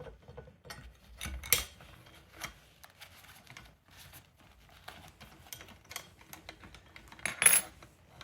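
Scattered light clicks, taps and clatter of balance-bike parts being handled and fitted together, with a louder knock about a second and a half in and a louder clatter near the end.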